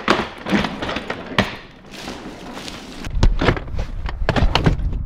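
A hard-shell suitcase being handled and loaded into a vehicle's back seat: a string of sharp knocks, clicks and thumps, with a low rumble joining in about halfway through.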